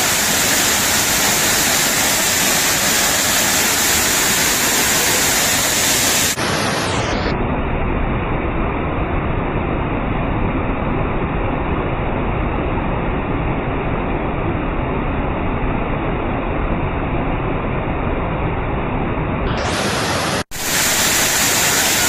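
Steady rushing of water from a rain-swollen waterfall and cascading stream. About six seconds in it turns duller and more muffled; just after twenty seconds it cuts out for an instant and comes back brighter.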